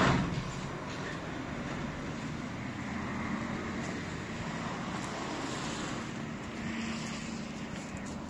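A single loud thump, then steady motor-vehicle noise with a faint low hum.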